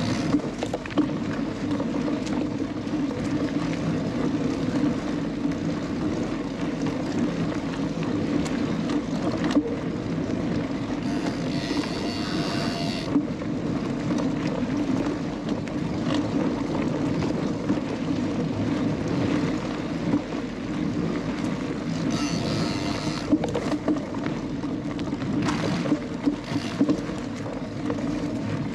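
Mountain bike ridden along a woodland dirt trail, heard from a bike-mounted camera: steady tyre-rolling and wind noise with small knocks and rattles, and two short stretches of higher-pitched buzzing, about a third of the way in and again about three quarters in.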